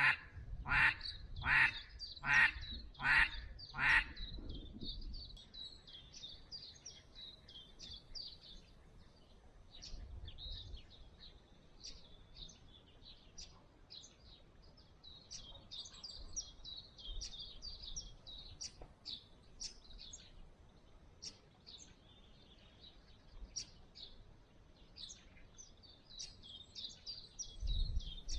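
Mallard duck call blown in a run of about six loud quacks, roughly one every three quarters of a second, stopping about four seconds in. Small songbirds then chirp and twitter.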